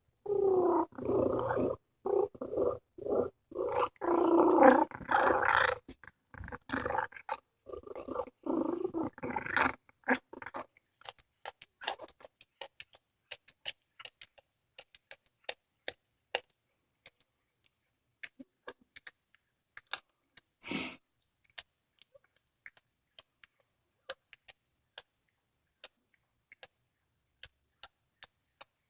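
A cat eating a squirrel. For about the first ten seconds it makes loud rumbling vocal sounds in quick pulses, with mouth noises. After that come scattered small chewing clicks and crunches, and one short rustling burst about twenty seconds in.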